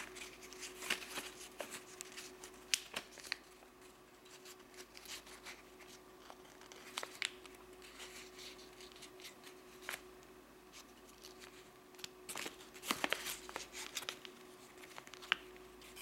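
White printer paper being folded and creased by hand: soft rustles and short crisp crackles, with a denser run of crinkling about three quarters of the way through, over a faint steady hum.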